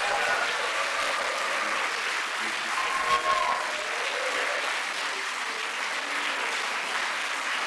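Audience applauding steadily, with a brief voice heard through the clapping about three seconds in.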